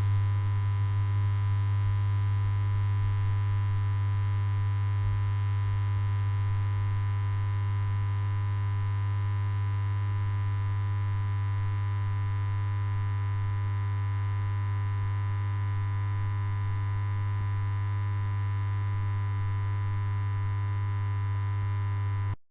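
Neon light buzzing with a steady electrical mains hum: one strong low tone with a thin stack of higher overtones, unchanging, then cutting off suddenly near the end.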